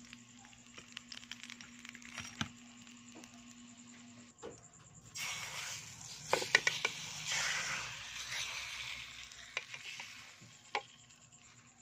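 Cooking oil sizzling and crackling, faint at first, then louder about five seconds in with sharp pops, and dying down near the end.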